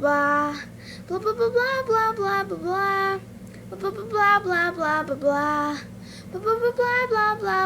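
A child singing in a high voice, the same short sung phrase coming back over and over about every three seconds, with a faint steady hum underneath.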